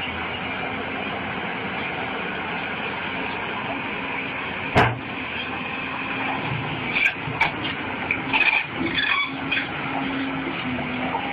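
Steady running noise of a road vehicle, with one sharp loud bang about five seconds in, then a cluster of smaller knocks and clatters a couple of seconds later.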